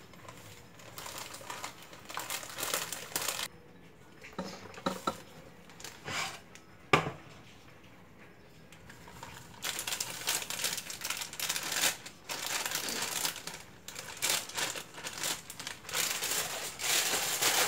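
Plastic inner bag of a boxed cake mix crinkling and rustling as the dry mix is poured and shaken out into a glass mixing bowl. A sharp tap comes about seven seconds in.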